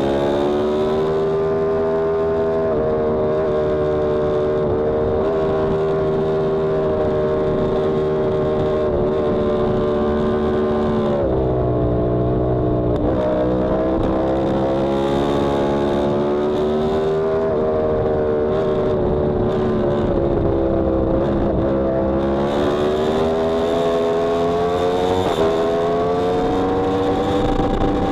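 Yamaha R1M's crossplane inline-four engine running hard at track speed. Its pitch climbs, falls sharply about halfway through as the bike slows, sags again a little later, then climbs steadily toward the end. A rushing wind noise runs over it.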